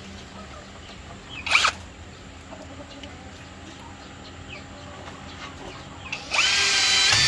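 Power drill driving a screw: it starts about six seconds in, rises quickly in pitch and then runs steadily under load. A short sharp noise about a second and a half in.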